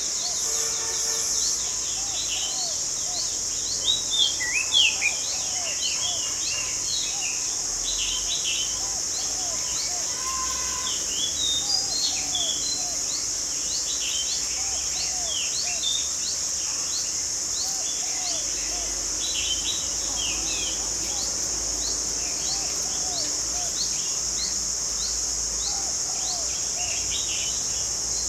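Outdoor garden ambience: many birds chirping in short, scattered calls over a steady, high-pitched insect drone.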